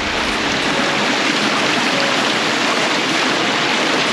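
A small cascade of warm stream water pouring into a little pool: a steady, unbroken rush of running water.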